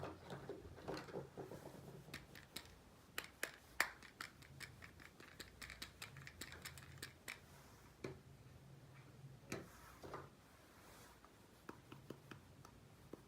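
Small miniature kitchen toy pieces being handled and set in place: a run of sharp little clicks and taps with some scraping, thickest a few seconds in, then sparser knocks.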